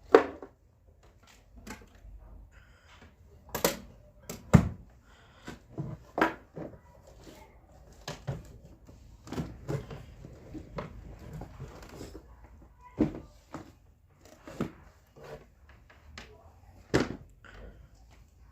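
Irregular knocks and thumps of a homemade wooden speaker box being handled, the loudest just after the start and about four and a half seconds in.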